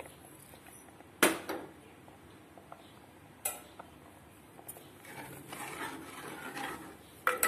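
A bowl and spoon clink sharply against a metal cooking pot, once loudly about a second in and again more softly a couple of seconds later. A steel spoon then stirs and scrapes around the pot of milk and vermicelli.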